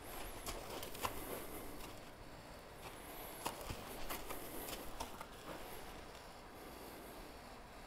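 Faint, scattered footfalls and light knocks of a horse and a person moving about on the ground, a few irregular steps a second or so apart, with a few faint high chirps.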